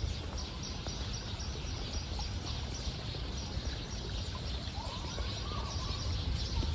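Outdoor ambience: birds chirping steadily over a low rumble, with one faint longer call about five seconds in.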